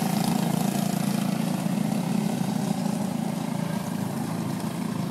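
Go-kart engine running at a steady pitch, slowly growing fainter as the kart moves away around the track.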